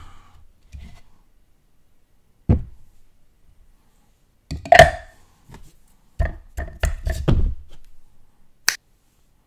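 Plastic parts of a mini food processor being handled and set down: separate knocks and clacks, a quick run of several in the second half, and one sharp click near the end.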